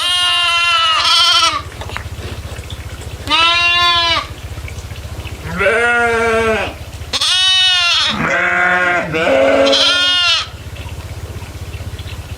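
Goats bleating: about six drawn-out calls over the first ten seconds, two near the end overlapping at different pitches, over a steady low hum.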